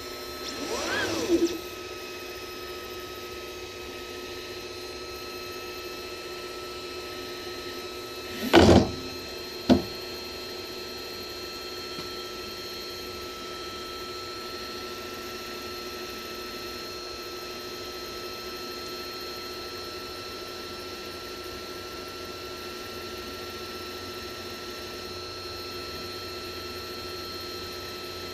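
Creality Ender 3 V3 Plus 3D printer powered up during its self-check, its fans and motors giving a steady hum of several fixed tones. About a second in, a motor whine glides up and falls again as an axis moves; a loud knock comes about eight and a half seconds in, followed a second later by a sharp click.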